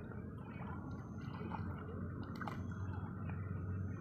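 Water dripping and lapping in small splashes as a mesh net bag is worked in the shallows, with a few light ticks, over a steady low rumble.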